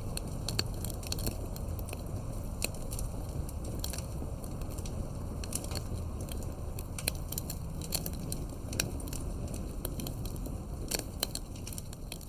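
Wood campfire burning, crackling and popping: irregular sharp snaps, several a second, over a steady low rumble of the flames.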